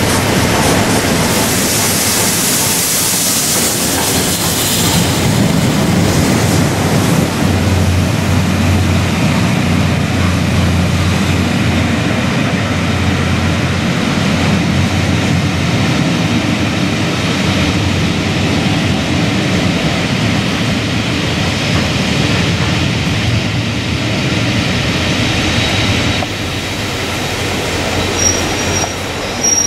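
Passenger train rolling along the track with a steady rumble, and a rushing hiss in the first few seconds. A thin high wheel squeal starts near the end.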